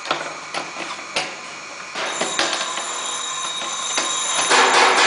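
Metal parts of a wax match filling machine's pallet clinking and knocking as they are handled and taken apart, over a steady high ringing tone. A louder, harsher scraping noise comes in about four and a half seconds in.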